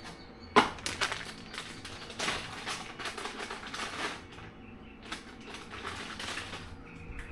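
Hands handling the parts of a Yak Power dual USB-C port kit: a sharp click or knock about half a second in, then an irregular run of small clicks, taps and rustling.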